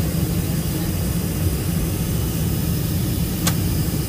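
Steady low rumble of a Boeing 747's jet engines and airflow heard inside the passenger cabin during descent, with one sharp click about three and a half seconds in.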